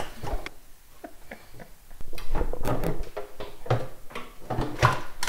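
Irregular metal knocks, clicks and rattles as a loosened kitchen faucet is worked free and lifted out of its hole in a stainless steel sink, its supply lines pulled up through the deck. It is quieter for the first two seconds; the handling knocks come thick from about two seconds in.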